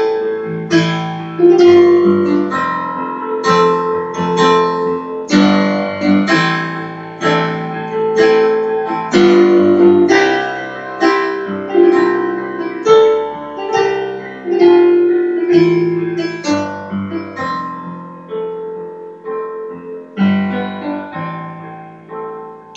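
Solo digital piano playing an instrumental passage, with no voice: chords and melody notes struck one after another, each ringing and fading, growing softer toward the end.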